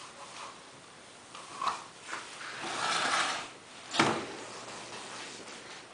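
A few light knocks, a scrape lasting about a second, then one sharp knock about four seconds in, as a toddler handles and bumps the frame of a table on a tile floor.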